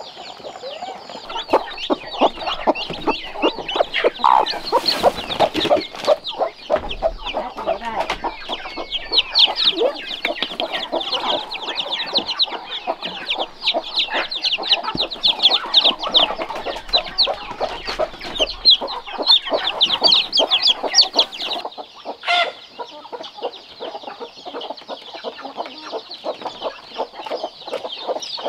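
A flock of chickens clucking, with many short, quick high calls packed densely over lower clucks.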